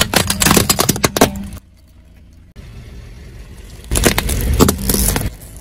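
A car tyre slowly crushing a hollow plastic ball toy in a mesh net gives a dense crackle of snapping plastic for about a second and a half. After a short lull, a second burst of crunching and cracking comes as the tyre rolls over a pile of woven decorative balls.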